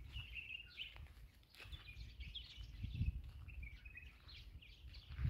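Small birds chirping on and off, faint, over a low rumble.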